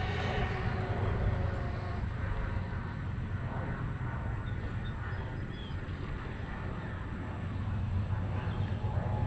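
Twin-motor electric RC speedboat running a pass out on the lake. Its motor whine fades over the first couple of seconds and rises again near the end, over a steady low rumble. Geese honk faintly.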